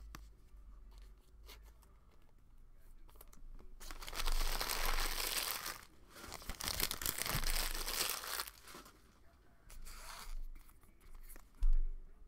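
Trading card packaging being torn open, with a crinkling plastic wrapper in two long rips about four and seven seconds in and a shorter one later. A single thump near the end is the loudest sound.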